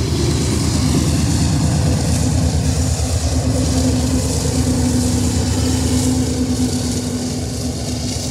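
GE AC4400CW-type diesel locomotive running as the rear pusher unit of a loaded coal train as it passes and pulls away, with a steady engine rumble. A steady hum comes up about two seconds in and fades near the end as the locomotive draws away.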